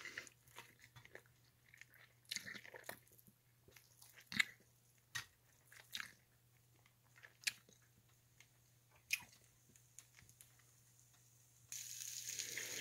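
Faint, scattered soft squishes and taps of tender slow-cooked pork roast being pulled apart by hand and dropped into a skillet, over a low steady hum. Near the end a steady hiss sets in.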